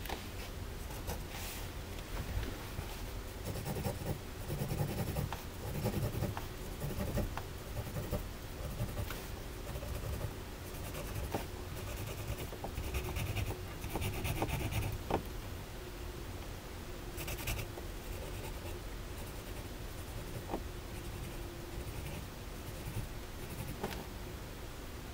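Marker pen nib scratching across paper in many short, repeated strokes as rows of stripes are drawn.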